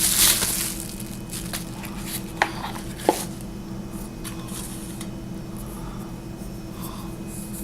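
Handling noise as a flashlight is picked up and turned over in the hands: a brief rustle at first, then two sharp clicks about two and a half and three seconds in, over a steady low background hum.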